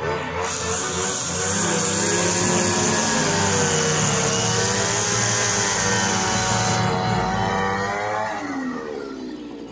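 Zomax ZNG 4303 two-stroke brush cutter engine running at high revs, its pitch sagging and recovering over several seconds, then dropping away near the end.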